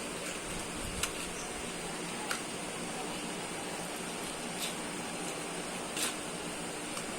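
A few faint, sharp clicks, spaced a second or more apart, over a steady background hiss: small hard objects being handled.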